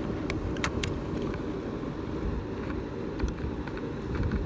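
Steady low rumble with scattered sharp crinkles and clicks of foil duct tape being handled and pressed onto a dryer vent.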